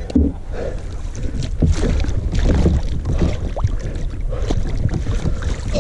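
A hooked smallmouth bass splashing and thrashing at the surface beside a kayak, with scattered knocks and wind rumbling on the microphone.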